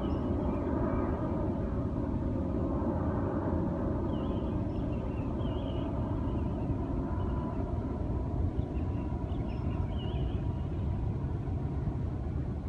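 Steady low rumble of distant road traffic, with a few faint high chirps about four and nine seconds in.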